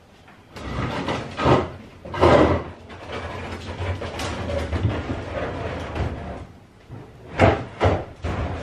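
Wheeled plastic trash bin being tipped and rolled across a concrete driveway: a steady rumble of the wheels with loud clunks, two near the start and two more near the end.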